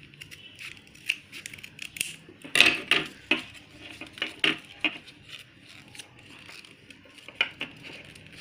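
Scissors snipping through folded paper. The scissors are then put down on the table with a clatter, the loudest sound here, about two and a half seconds in. After that come scattered clicks and rustles of paper being folded and creased by hand.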